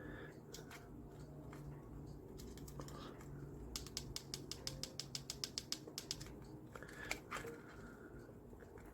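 Small parts of a calculator being handled: a rapid run of about twenty light clicks over two seconds, then one sharper click.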